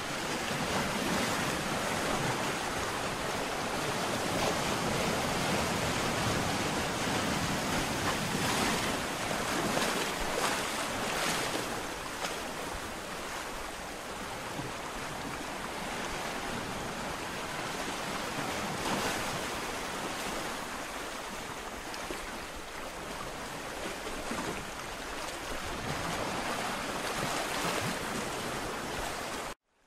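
Ocean surf breaking on a shore: a steady rush of waves that swells and eases slowly. Near the end it cuts out abruptly for a moment.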